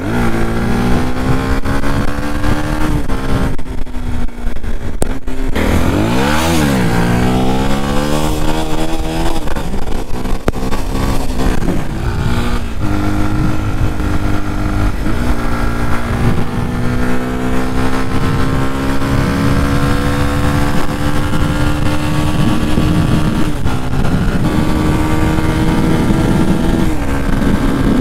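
Yamaha WR 125 X's 125 cc single-cylinder four-stroke engine under way. The revs climb and level off in steps as it pulls through the gears, with a quick drop and rise about six seconds in, and wind rushes over the microphone. It runs on its stock exhaust, a sound the rider calls pathetic ("erbärmlich").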